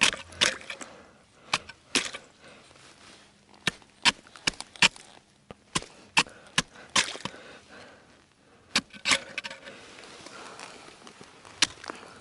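Steel ice chisel (ice spud) chopping at ice, sharp strikes in irregular clusters with short pauses: breaking open an ice-fishing hole that has frozen over solidly.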